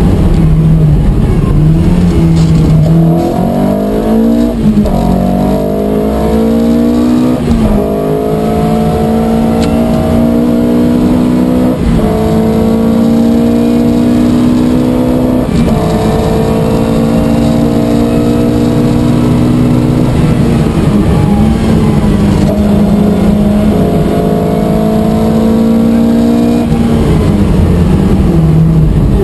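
Opel Manta rally car's engine at full throttle, heard from inside the cabin, pulling hard through the gears: the note climbs and then drops sharply at each of several upshifts, and the throttle eases off and picks up again in the second half.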